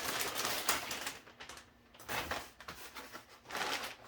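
Cardboard boxes and packaging being handled and opened: a dense run of rustling and clicks for about the first second, then two shorter bursts of rustling.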